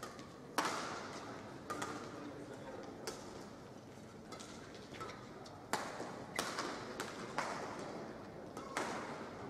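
Badminton rally: rackets strike the shuttlecock with sharp cracks every second or so, the loudest about half a second in and near the end, each followed by a short ring of hall reverberation. Brief squeaks of players' shoes on the court surface come between the hits.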